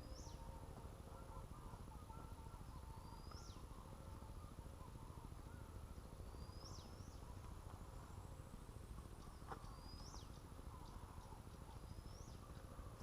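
A bird repeating a short, high call that rises and then drops sharply, five times at about three-second intervals, over a faint steady low rumble.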